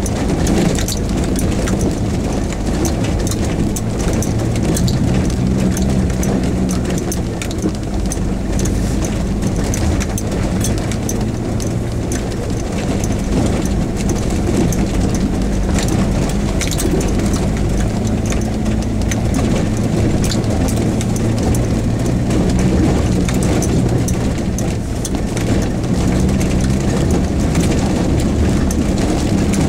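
Lifted Jeep Wrangler YJ crawling over a rough, rocky gravel track. Its engine runs with a steady low drone, broken by frequent knocks and rattles from the body and from stones under the tyres.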